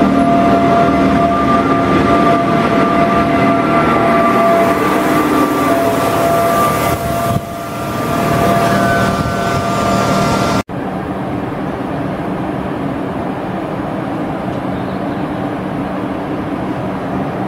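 SNCF BB 7200 electric locomotive coming alongside the platform with a steady high whine from its electrical equipment over the rumble of the train. After an abrupt cut about ten seconds in, it gives a lower, even hum as it stands at the platform.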